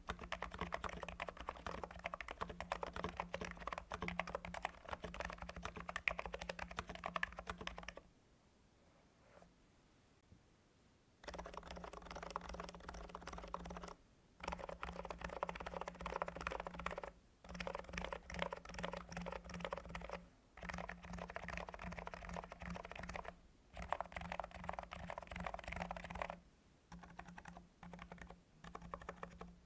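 Typing on a NIZ x87 tenkeyless keyboard with electro-capacitive, Topre-clone switches: rapid, dense keystrokes. The typing stops for about three seconds some eight seconds in, then resumes with a few short breaks.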